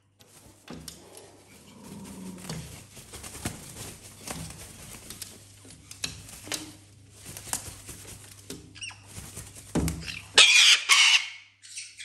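A white cockatoo flaps its wings and scrambles about on blankets and a rope perch, with rustling and light knocks. About ten and a half seconds in comes a loud, harsh burst of wing beats, and a shorter one follows near the end.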